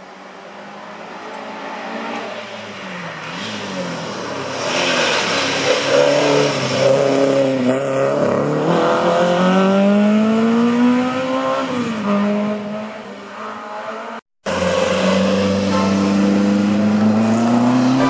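Race car engine approaching and driving through a hairpin on a hill climb, getting louder, its revs rising and dropping through gear changes. After a short cut, an engine is heard accelerating again with climbing revs.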